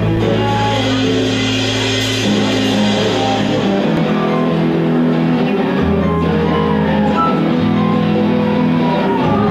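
Live rock band playing an instrumental passage: electric guitar and bass guitar hold long notes that change every couple of seconds, over drums.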